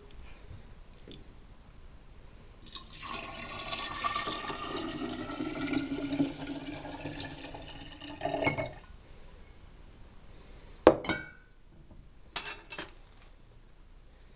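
Birch sap poured from a glass jar into a three-litre glass jar, splashing for about six seconds with a tone that rises in pitch as the jar fills. A sharp knock and a few clinks follow near the end.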